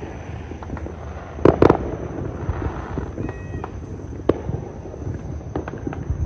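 Fireworks going off all around: a constant crackle of distant pops, with two loud, close bangs about a second and a half in and another sharp crack about four seconds in.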